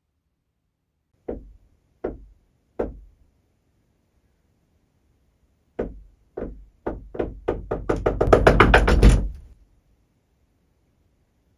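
Knocking: three slow knocks, a pause of about three seconds, then knocks that come faster and faster into rapid, loud pounding before stopping.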